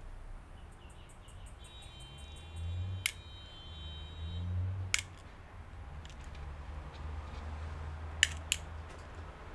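Sharp clicks and taps of plastic parts being handled on an opened laptop, four loud ones spread out, the last two close together near the end, over a low hum.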